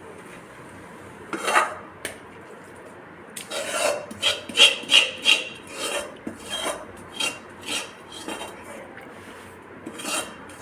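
A spoon scraping a thick mohanthal mixture of roasted gram flour, ghee and sugar syrup around a metal pan in a run of short strokes, a few a second, busiest through the middle.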